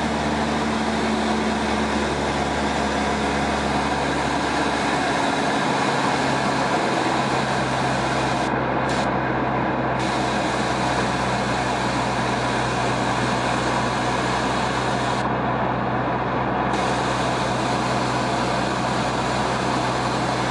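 Steady drone of a Cessna's single piston engine and propeller heard inside the cabin in flight. The low engine tone shifts slightly a few seconds in.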